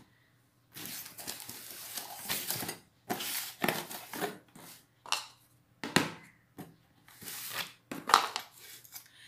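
Cardboard product boxes being handled and slid across a tiled floor: a long scraping rustle, then several shorter scrapes with a few knocks as they are set down.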